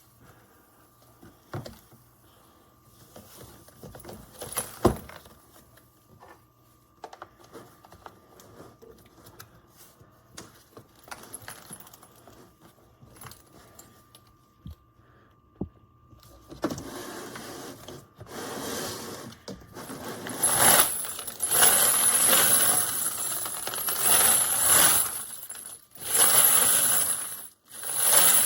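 Spent brass cartridge cases clinking: a few scattered clinks at first, then from about sixteen seconds in a loud, continuous metallic rattle in surges as the cleaned cases are shaken together.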